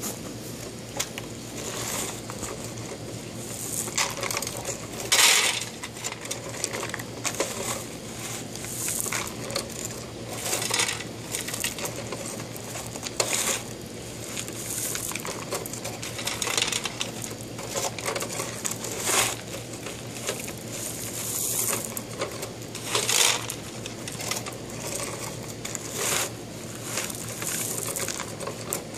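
Hand-worked toy front-end loader scooping crushed gravel and tipping it into a toy haul truck: irregular scraping and crunching of small stones, with rocks clattering into the truck's bed.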